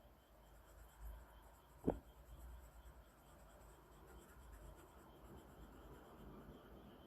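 Faint scratching of a drawing tool working across paper, with one sharp tap about two seconds in.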